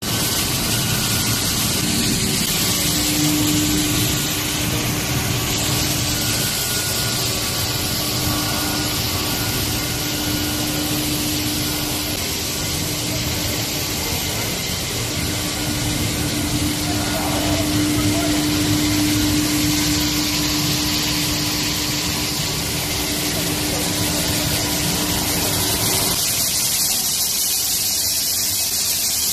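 Plastic film recycling and pelletizing line running: compactor-agglomerator and extruder machinery make a steady mechanical hum with a held mid-low tone and a high hiss. Near the end the low hum drops away and a hiss remains, as water sprays on the pelletizing die face.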